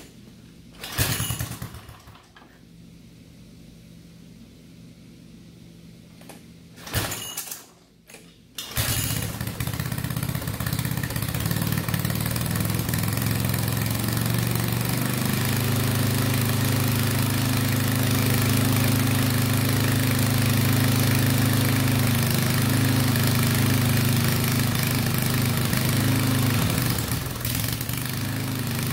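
Sears Craftsman rototiller's 8 hp Tecumseh single-cylinder engine being pull-started: recoil pulls about a second and seven seconds in, and it catches just before nine seconds in and keeps running steadily, picking up speed about fifteen seconds in.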